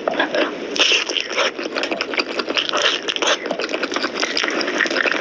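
Close-up eating sounds of mutton nalli curry: a dense, irregular run of wet chewing, smacking and sucking clicks.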